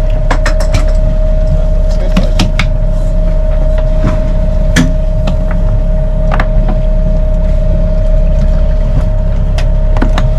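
Steady low rumble with a constant droning tone aboard a sailing yacht under way, with scattered sharp clicks and knocks as a sheet is handled at a cockpit winch and rope clutch.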